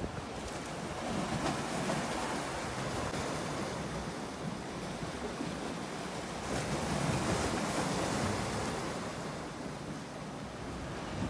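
Sea waves washing with wind on the microphone, swelling louder about seven seconds in.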